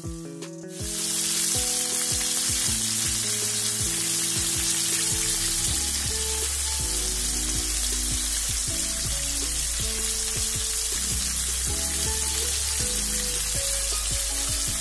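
Coated chicken pieces deep-frying in a wok of hot oil: a loud, steady sizzle that comes up sharply about a second in and holds.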